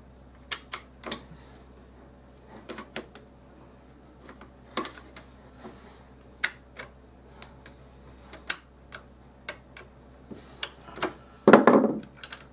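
Scattered small clicks and clacks of Mossberg Maverick 88 shotgun parts being handled and fitted into the receiver. Near the end there is a louder clatter as the trigger group drops onto the wooden bench.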